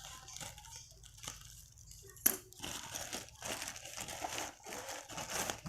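Flash drive packaging being opened by hand, crinkling and rustling, with a sharp click about two seconds in and denser crinkling after it.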